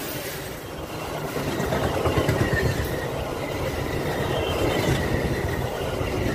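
Metra bi-level stainless passenger cars rolling past close by: steel wheels on the rails make a steady rumble with a clickety-clack over the joints and a faint high squeal.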